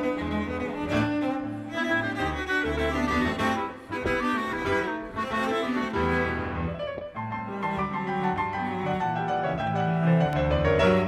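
Instrumental background music with cello and other bowed strings over piano.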